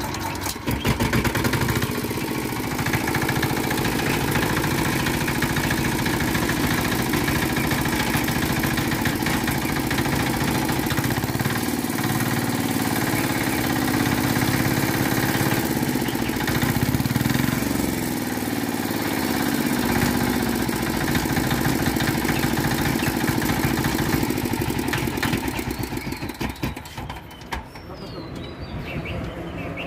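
New Z170F 4 hp single-cylinder air-cooled diesel engine, hand-cranked, catching about a second in and then running steadily on its first start. Its sound drops away about 26 seconds in.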